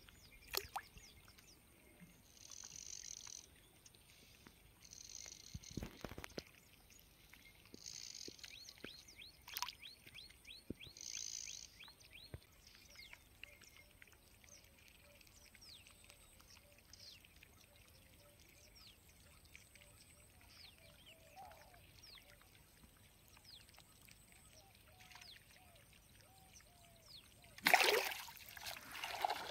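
Faint birds chirping over quiet open-air ambience, with one knock about six seconds in. Near the end comes a sudden loud burst of splashing: a hooked rohu thrashing in shallow water.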